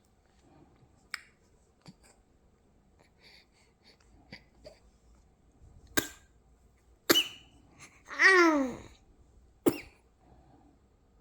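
Small sneezes: three short, sharp bursts in the second half, with a longer voice-like sound falling in pitch between the second and the third. There are faint clicks before them.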